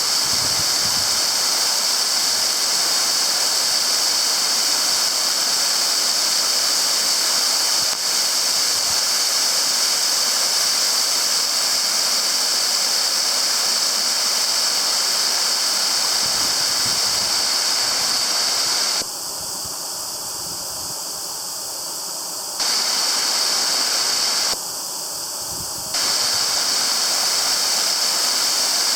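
Water falling at a partly frozen waterfall: a steady rushing hiss. Twice it drops abruptly to a quieter, duller sound, for about three seconds two-thirds of the way through and again briefly a little later, then comes back just as abruptly.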